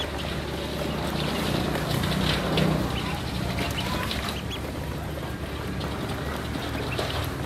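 A group of ducklings peeping in short, high, scattered calls while they peck at feed in a plastic tub, over a steady low rumble.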